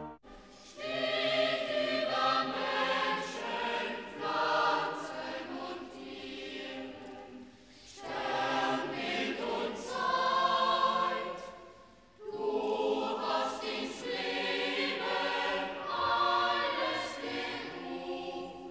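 Boys' choir singing in a large church, in long phrases with short breaks about eight and twelve seconds in.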